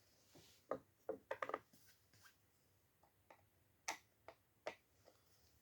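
A few light clicks and taps, scattered irregularly, against near silence: small parts or tools being handled during the pump repair.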